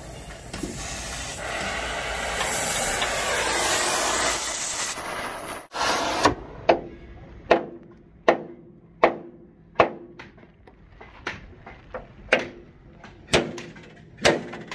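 A loud steady hiss for about the first five and a half seconds, then a hammer striking a punch held against a steel truck chassis frame: about a dozen sharp metallic blows, a little under a second apart.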